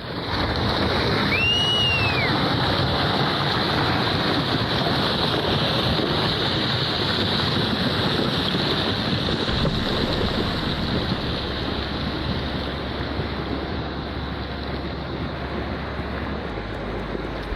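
Loud, steady rushing noise of surf and wind buffeting the microphone, starting abruptly. About one and a half seconds in there is a brief whistle that rises and then falls.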